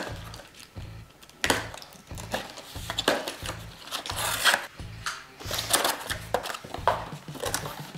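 Cardboard box being opened by hand: flaps and packaging rustling and scraping in irregular bursts. Background music with a steady beat of about two thumps a second plays under it.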